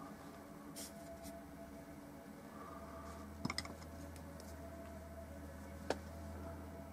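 Quiet, steady electrical hum, with a quick cluster of light clicks about halfway through and one sharp tick near the end from a paintbrush and painting gear being handled.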